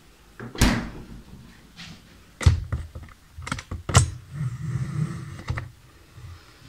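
Refrigerator door pushed shut with a thud about half a second in, followed by a few sharp knocks and clatters as things are handled at the counter.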